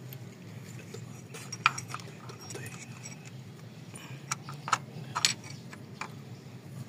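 Small metal parts and hand tools clinking and tapping while the engine's diesel injectors are being fitted: a few sharp clinks, the loudest a little under two seconds in and a cluster around five seconds in, over a low steady hum.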